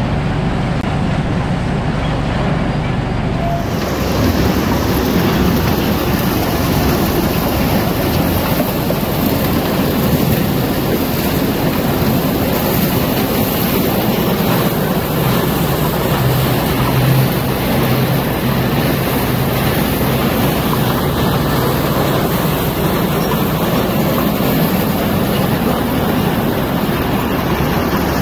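John Deere 2010 tractor running steadily at working speed, driving a corn elevator through its PTO shaft. The elevator's chain carries ear corn up into the crib, making a continuous mechanical rattle.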